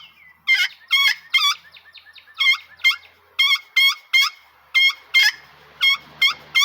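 Friction pot turkey call run with a striker, playing keys: about a dozen short, high-pitched squealing notes in a string, some breaking into yelp-like notes, imitating a young hen keying.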